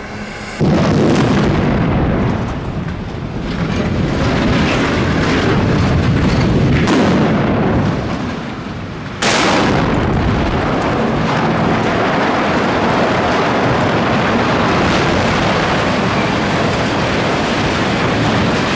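Explosives demolition of a power-plant structure heard close up: a loud blast starts suddenly about half a second in and runs on as rumbling noise, then a second sudden surge of blast noise about nine seconds in as debris and dust blow toward the camera, staying loud to near the end.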